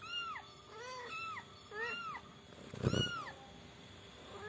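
Young orange-and-white kitten mewing repeatedly: about six short, high mews in quick succession, each rising then falling in pitch. The loudest mew comes about three seconds in, together with a dull thump.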